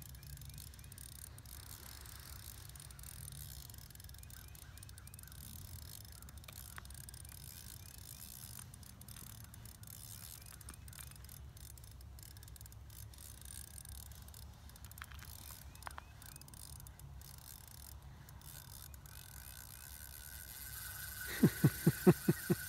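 Ice-fishing reel being worked against a hooked lake trout, with faint clicking, then near the end a quick run of about six loud clicks.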